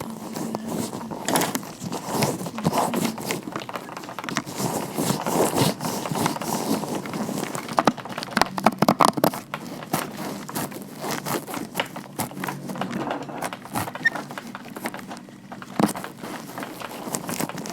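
Gloved hands rubbing and tapping: a continuous crinkly, crackling rustle of vinyl-latex gloves, with many small clicks.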